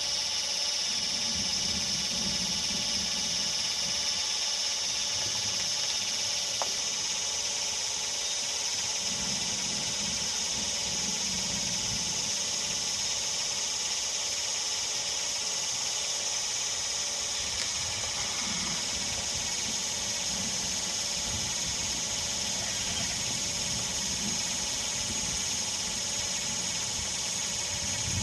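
A steady, high-pitched chorus of insects over summer pasture, with a low rumble that comes and goes.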